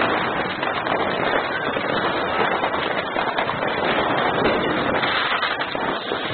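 Many fireworks and firecrackers going off at once, heard as a dense, unbroken crackle of rapid pops.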